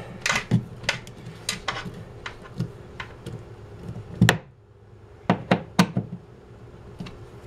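Screwdriver hand-tightening a screw into a shelf bracket and wall anchor: irregular sharp clicks and knocks as the tip works in the screw head, with one louder knock about four seconds in. The screw is not tightening properly, and the owner thinks it needs to be a longer, stronger screw.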